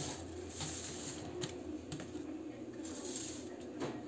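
Metal spoon scraping and clinking against a bowl and small loaf tins as cake batter is spooned in: a few light clicks, the sharpest near the end, with soft scraping between them.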